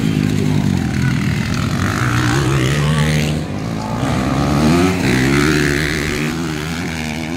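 Motocross dirt bike engines revving as they race along the dirt track, the pitch repeatedly climbing and falling back with the throttle.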